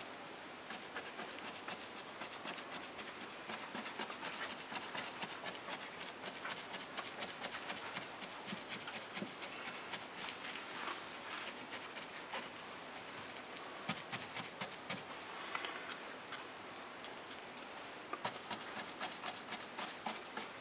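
Large round paintbrush punching wet paint onto a fascia board: a rapid, uneven patter of soft bristle taps, easing off briefly about two-thirds of the way through.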